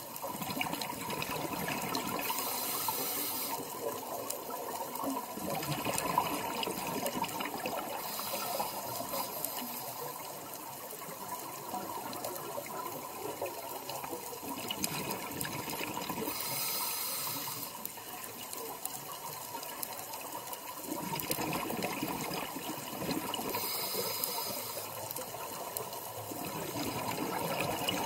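Scuba diving heard through an underwater camera: a steady wash of moving water, with a burst of bubbling from a diver's exhaled air roughly every seven seconds, four times.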